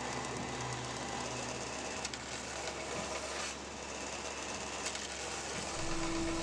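Belt grinder running, its abrasive belt moving steadily over the wheel. The sound turns duller about halfway through, and music comes in near the end.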